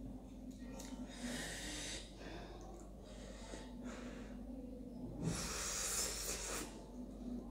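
A person slurping spicy ramen noodles off a fork: two long hissing slurps, a short one about a second in and a longer, louder one about five seconds in.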